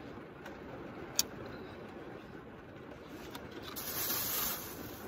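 Quiet steady background with one sharp click about a second in, then a short rustle near the end, as of a plastic zip-top bag being handled.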